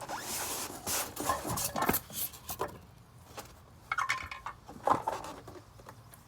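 Serrated kitchen knife sawing through a half-inch styrofoam sheet: a rasping scrape in quick strokes for the first couple of seconds, then a few separate scrapes and rubs of the foam.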